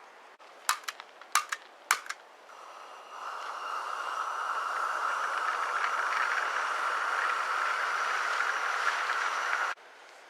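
A gas burner being lit: a quick series of igniter clicks, then the steady hiss of the gas flame, which cuts off suddenly near the end.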